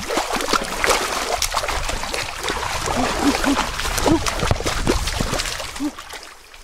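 Water splashing hard and repeatedly in a shallow stream as a wooden stick is struck and jabbed into it, dying down near the end.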